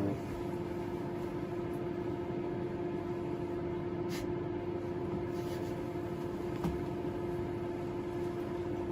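Microwave oven running with a steady hum, with a couple of faint ticks from inside.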